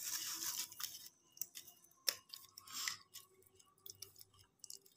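Fingers squeezing and mashing tamarind pulp in water in a steel bowl: faint wet squelching in short bursts, with a few small clicks.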